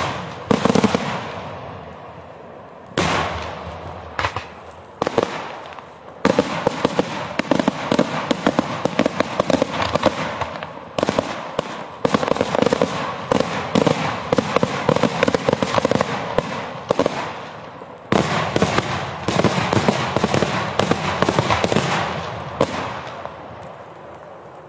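Daytime fireworks shells bursting overhead: a few separate loud bangs in the first six seconds, then long dense volleys of rapid crackling bangs, thinning out near the end.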